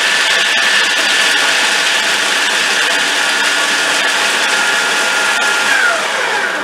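Electric food processor running steadily, its blade grinding shelled hazelnuts into a fine meal. About six seconds in, the motor whine falls in pitch as it winds down and stops.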